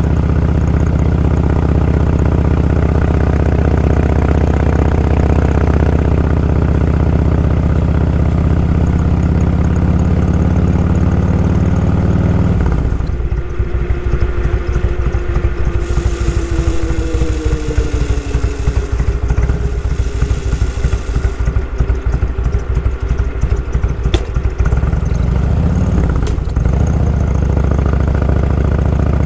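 Motorcycle engine running under the rider, heard from a camera mounted on the bike. About 13 seconds in, the steady engine note breaks into a rapid, uneven pulsing, and near the end it turns steady again.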